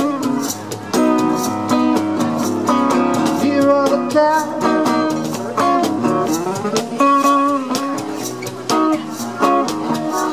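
Acoustic guitar playing a melodic instrumental passage with sliding notes, over a steady beat of cajon strokes.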